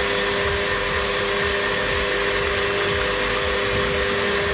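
Electric planetary stand mixer running steadily at raised speed, its motor giving a steady whine over a hum, as it whips mascarpone cream together with whipping cream.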